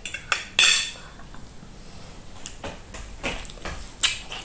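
A fork clicking and scraping against a plate: a handful of short clicks spread through, with one louder brief scrape about half a second in.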